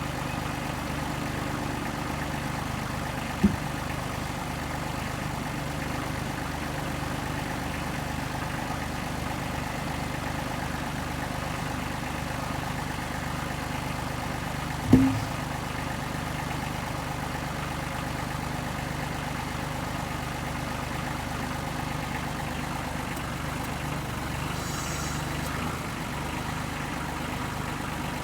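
Engine running steadily at idle, with two sharp knocks, one about three seconds in and a louder one about fifteen seconds in.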